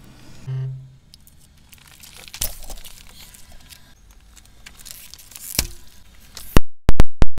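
Car tyre crushing foil juice pouches on asphalt: crinkling and tearing foil with a few sharp cracks, then several very loud pops near the end, with a brief low hum about half a second in.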